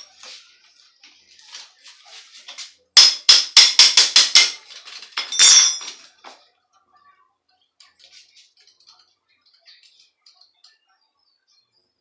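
Metal tools clinking on a bicycle's steel headset as a wrench works the nut: a quick run of about seven sharp metallic strikes, then a short rasping metal scrape, with scattered light clicks of handling.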